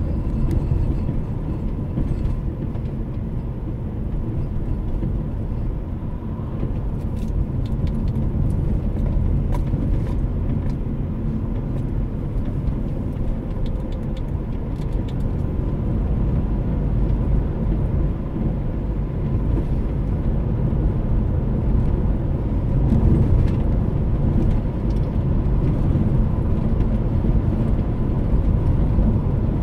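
Car driving along a road, heard from inside the cabin: a steady low rumble of engine and tyres, with a faint steady high tone under it.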